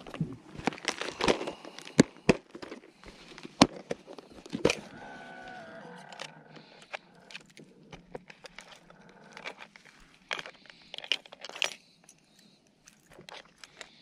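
Fishing gear being handled in a kayak: scattered clicks, knocks and rustling, with a brief buzzing whir about five seconds in.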